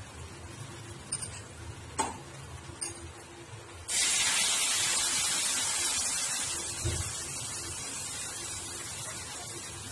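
A few light knocks, then about four seconds in a loud sizzle as liquid is poured into a hot steel kadhai of fried spices. The sizzling dies down slowly.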